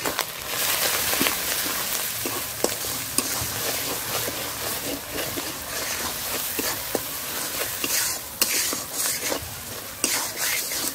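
Onion, ginger-garlic paste and ground spices sizzling in hot oil in a kadai while a spatula stirs and scrapes through it, with frequent short clicks of the spatula against the pan over a steady sizzle.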